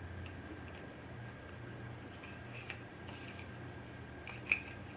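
Faint small clicks and light rustling of wires and parts being handled inside an opened router housing, with one sharper click about four and a half seconds in, over a low steady hum.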